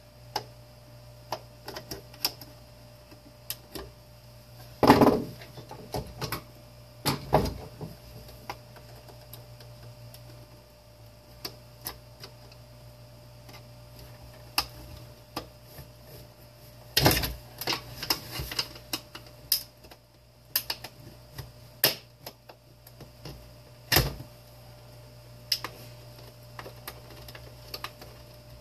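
Irregular clicks, clinks and knocks of screwdrivers and the space heater's metal and plastic parts being handled and pried apart, with a handful of louder knocks spread through, over a steady low hum.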